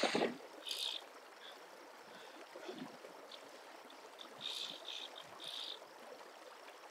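Faint steady rush of river water, with short high rasping bursts about a second in and several more between four and five and a half seconds in, from the fly reel's click drag as line is pulled off.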